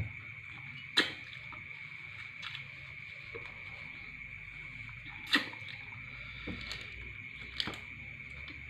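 A few sharp clicks and knocks of things being handled and set down on a table (glass, plastic container, plastic bottle), the loudest about a second in and about five seconds in. Behind them, a steady high chirring of crickets.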